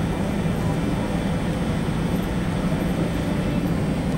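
Steady low rumbling drone of a large indoor arena's background noise, even throughout, with no distinct hoofbeats standing out.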